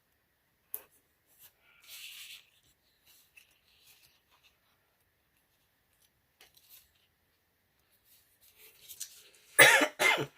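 Quiet handling of paper stickers: a few light clicks and a short papery rub about 2 seconds in. Near the end, a loud, short two-part outburst from the person, a sneeze-like bodily sound.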